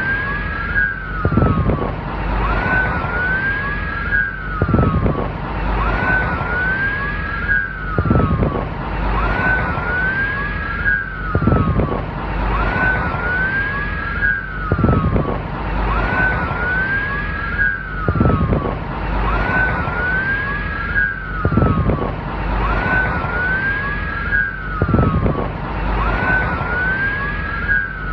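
Police car siren wailing in quick, repeating rise-and-fall sweeps, two wails overlapping each time, over a steady low rumble. A short low surge recurs about every three seconds.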